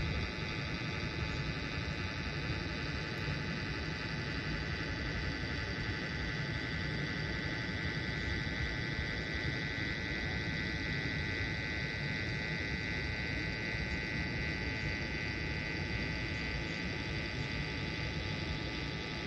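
Steady hum and hiss with a constant high whine, unchanging throughout: background room noise with no speech.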